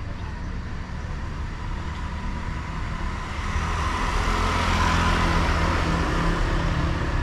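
Street traffic, with a motor scooter passing close by; the sound swells to its loudest about five seconds in and then eases, over a steady low rumble.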